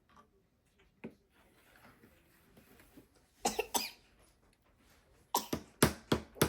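Small hammer striking a block of ice in quick, regular blows, about four a second, starting near the end, as the ice egg is chipped at to crack it open. Two short sharp sounds come a little past halfway.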